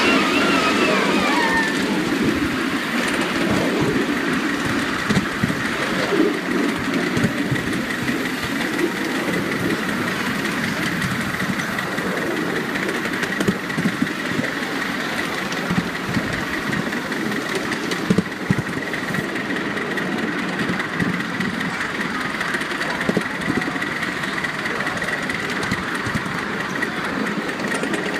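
Miniature ride-on live-steam locomotive and its riding car running along garden track: a steady running noise with irregular clicks from the wheels on the rails.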